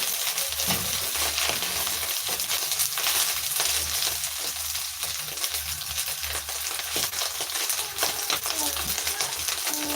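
Omena (small Lake Victoria sardines) frying in hot oil in a pan: a steady sizzle with constant fine crackling.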